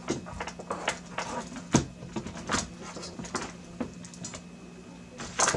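Irregular light clicks and knocks from hands handling cables and small parts, over a steady low hum, with a quick cluster of louder clicks near the end.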